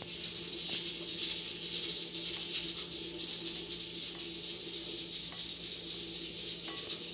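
Knife dicing cooked chayote held in the hand, the cubes dropping into a glass bowl: a few faint, soft clicks spaced irregularly, over a steady low hum and hiss.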